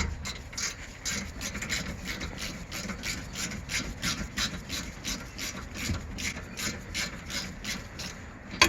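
A hex tool working a BMW rear brake caliper's 7 mm hex guide bolt loose makes a fast, even series of rasping strokes, a few a second. A single sharp click comes near the end.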